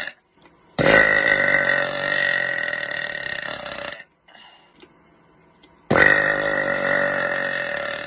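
A person burping twice: two long, loud burps, the first about three seconds and the second about two. Each starts abruptly and holds a steady pitch while slowly fading.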